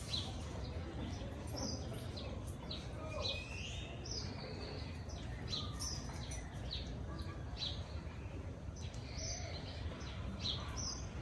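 Small birds chirping and twittering, with scattered short high calls and an occasional gliding whistle, over a steady low background hum.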